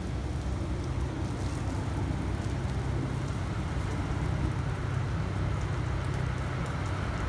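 Steady rain falling, with a low, steady rumble underneath.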